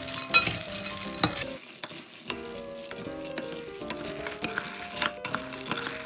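Metal spoon stirring oil-coated raw peanuts in a glass bowl: the nuts rattle and shift, and the spoon clinks sharply against the glass now and then, loudest about a second in.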